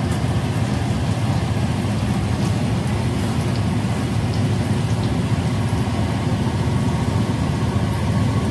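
Hot oil sizzling and crackling steadily in a wok as flour-coated pieces deep-fry, over a steady low rumble.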